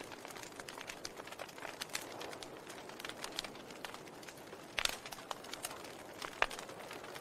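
Wood fire in a fireplace crackling: a soft steady hiss of burning with frequent small irregular pops, and two louder snaps in the second half.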